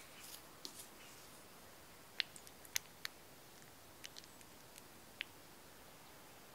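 Quiet stirring: a mixing utensil taps and clicks against the bowl, a few short, sharp clicks spread over the first five seconds, over faint hiss.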